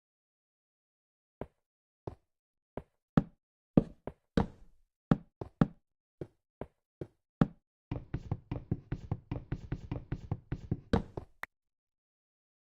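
A series of sharp knocks: about a dozen single knocks at uneven spacing, then a fast run of knocks, several a second, for about three and a half seconds that stops suddenly.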